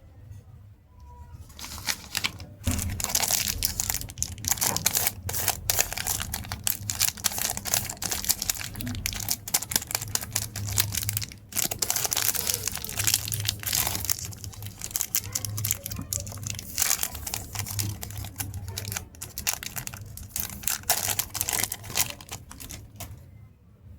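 Chocolate wrapper crinkling as it is handled and opened, a dense crackle that starts about two seconds in and stops just before the end.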